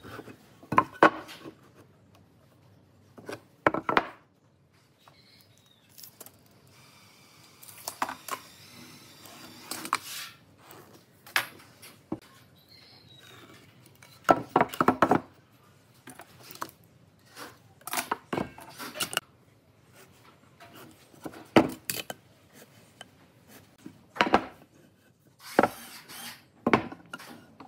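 Wood and hand tools being handled on a timber beam while it is marked out: short knocks, taps and scrapes at irregular intervals as boards, a pen, a metal square and a marking tool are set against the wood, with quiet between.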